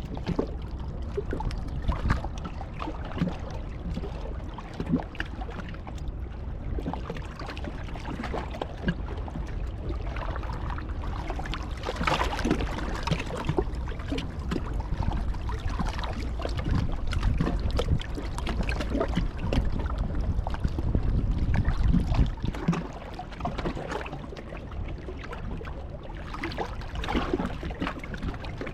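Wind buffeting the microphone with a steady low rumble and a rushing, surf-like noise, with scattered sharp clicks and knocks throughout.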